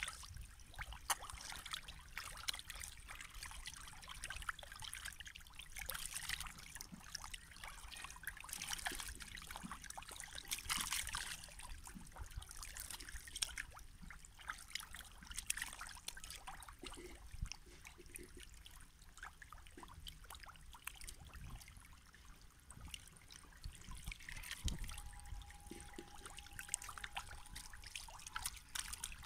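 A crowd of catfish thrashing and gulping at the surface of shallow pond water as they feed, a continuous splashing and slurping full of small pops and clicks that swells and fades every few seconds.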